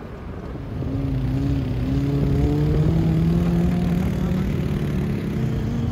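A motor vehicle's engine running, coming up about a second in and rising a little in pitch before holding steady.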